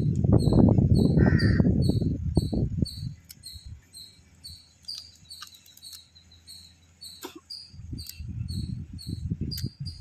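Close-up chewing and crunching of crab pieces, loud for the first three seconds and again near the end. A high chirp repeats about two or three times a second throughout.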